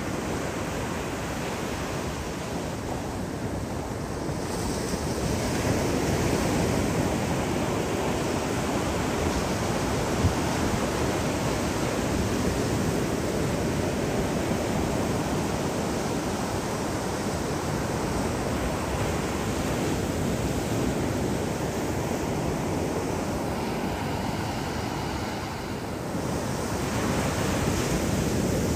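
Ocean surf: small waves breaking and whitewater washing toward shore in a steady rush, with some wind on the microphone.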